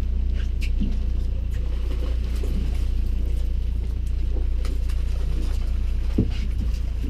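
Boat motor running steadily as a low hum, with a few light clicks and knocks over it.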